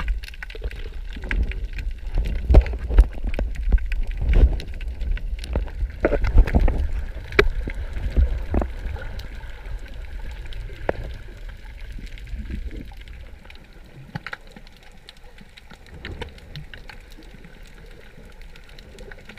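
Water heard underwater: muffled churning and gurgling with scattered clicks and knocks, heaviest in the first half, then settling to a quieter hiss with a few clicks.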